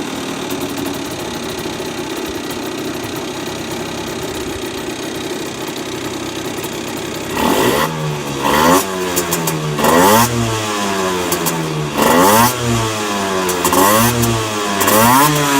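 Honda NSR50's two-stroke single-cylinder engine idling with an abnormal knocking noise, then blipped repeatedly from about halfway, the revs rising and falling every second or two. The owner suspects the noise comes from the crank big-end or a balancer bearing.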